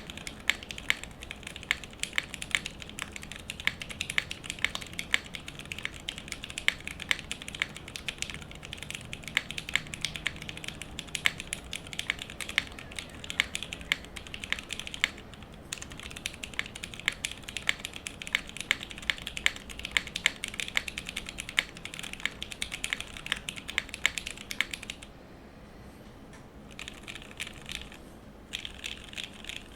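Mechanical keyboard being typed on steadily and quickly. It is a gasket-mounted polycarbonate-case board with lubed Cherry MX Retooled Brown tactile switches and GMK keycaps on an aluminium plate. The typing stops about 25 seconds in, and after a pause there are two short bursts of keystrokes.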